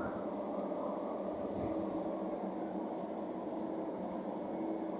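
Electric passenger train moving past close by along the platform: a steady rumble of wheels and running gear with a faint low hum.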